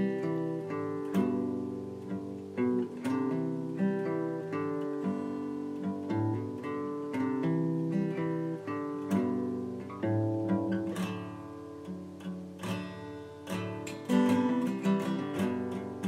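Intro music: an acoustic guitar picking a melody, note after note, growing louder and busier near the end.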